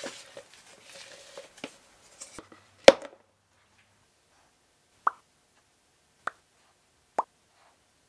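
Mouth-made popping sounds dubbed over bubbles being popped in silicone mold rubber: a loud sharp pop about three seconds in, then three softer single pops about a second apart.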